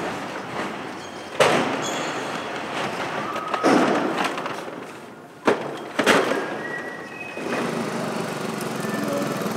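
Several heavy knocks and clatters of plastic crates of bottles being set down and stacked. After that a small moped engine runs steadily as the moped rides up.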